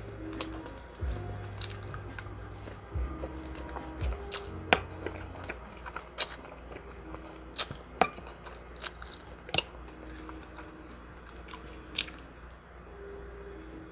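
Close-miked chewing and crunching of chicken wings, with sharp crunchy bites every second or so, over a soft instrumental beat.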